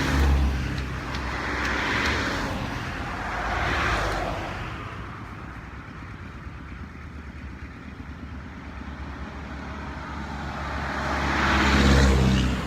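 Motor vehicles passing one after another: engine hum with a hiss that swells and fades at the start, about two and four seconds in, and again near the end, with a quieter spell in between.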